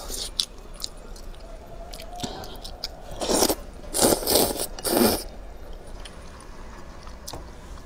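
Slurping wet wide starch noodles from hot and sour soup: three loud slurps about three to five seconds in, with small wet mouth clicks and chewing around them.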